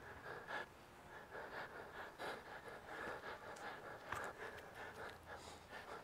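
A man panting hard, about two breaths a second, from the effort of working a bow drill, with the wooden spindle rasping in the fireboard.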